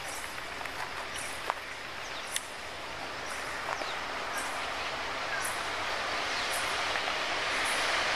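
Freight train hauled by two WAG-5 electric locomotives approaching: a steady rumble that grows louder throughout. Faint high chirps repeat about once a second over it.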